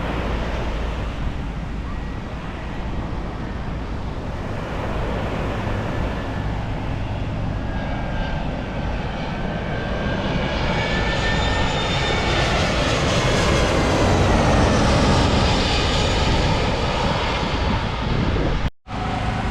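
Passenger jet airliner on final approach passing low overhead: the engine noise builds over about fourteen seconds, with high whining tones that bend downward as it passes, then eases off. It cuts off suddenly near the end.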